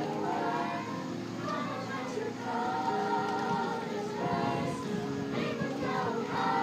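Music with singing: voices holding long, wavering notes over an accompaniment.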